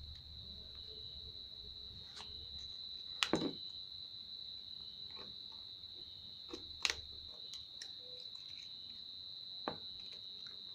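Small sharp clicks and taps of a blade or plastic sheet being worked around a phone's display edge, the loudest about three seconds in. Underneath is a steady, high, cricket-like tone.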